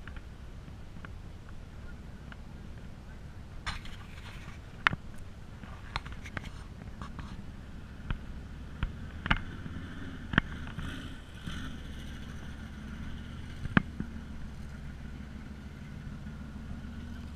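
Faint outdoor background: a steady low rumble with scattered sharp clicks and taps, the loudest a few seconds apart in the middle.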